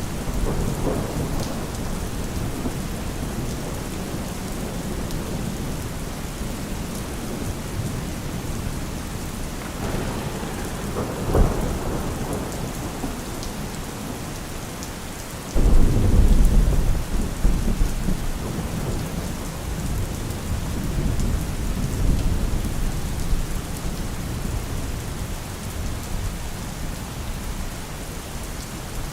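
Steady rain falling, with thunder: a short rumble and crack about eleven seconds in, then a sudden, louder deep roll of thunder about halfway through that fades away over several seconds.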